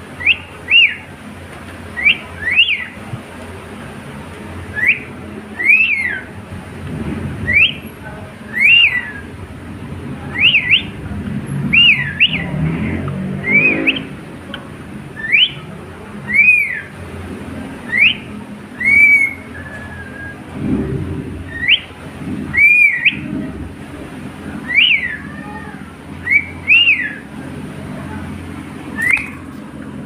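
Cockatiel calling in short whistled chirps that rise and fall in pitch, one every second or so, over a low background rumble.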